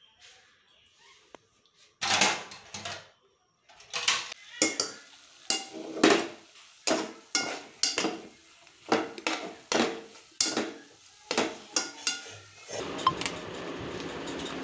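Metal spoon clanking and scraping against a steel cooking pot while mixing marinated chicken, a run of sharp ringing clanks about one to two a second. Near the end it gives way to a steady hiss.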